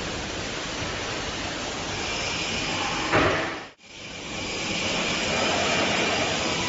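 Front sliding safety door of a multi rip saw being shut, with a short bang about three seconds in, over a steady hiss. The sound drops out for an instant just after.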